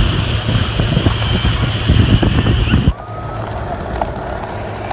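Wind buffeting the microphone on a Tahoe motorboat running at speed, over the steady rush of its wake. About three seconds in the sound cuts abruptly to a quieter, even engine drone with the wake water.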